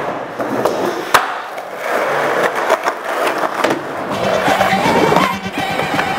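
Skateboard wheels rolling over a concrete floor, with a sharp clack of the board about a second in.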